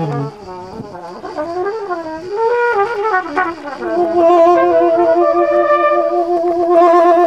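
Trumpet and saxophone playing jazz together: wavering, sliding phrases at first, then from about four seconds in long held notes.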